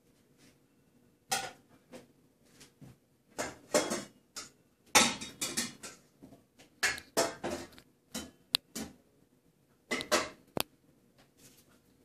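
Intermittent clattering and clinking: short, sharp knocks and scrapes in irregular bursts with quiet gaps between, loudest about five seconds in.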